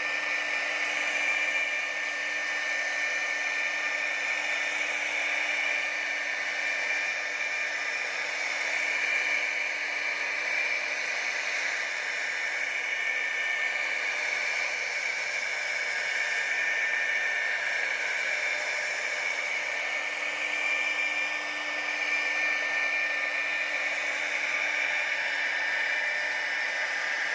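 CNC router spindle running at high speed while carving: a steady high-pitched whine over a hiss.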